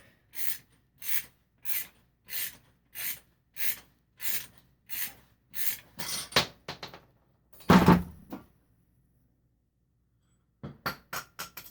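Regular short strokes, about three every two seconds, of a tool turning out a motorcycle fork's spring-loaded top cap bolt. About eight seconds in, a loud knock as the cap pops loose under spring pressure and flies out. A few small clicks follow near the end.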